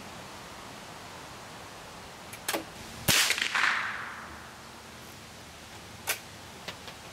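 A single gunshot: a sharp crack with an echo trailing off over about a second, a lighter click just before it. A few more light clicks come a few seconds later.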